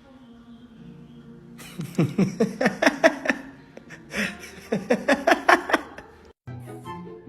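A person laughing in two quick bouts of rapid, falling-pitch bursts. Music comes in after a brief cut near the end.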